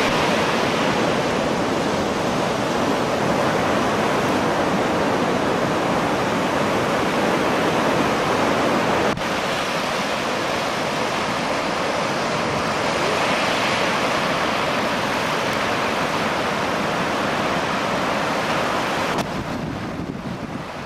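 Heavy surf breaking: a steady rush of wave noise. A click and a slight drop in level come about nine seconds in, and the sound turns duller and a little quieter near the end.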